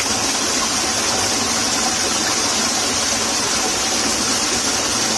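Steady rushing of water flowing in a small ditch: an even hiss with a constant high-pitched band over it.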